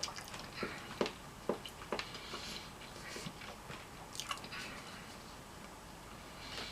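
Close-miked chewing and biting of food: soft wet mouth sounds with a scatter of small clicks, irregularly spaced and busiest in the first couple of seconds.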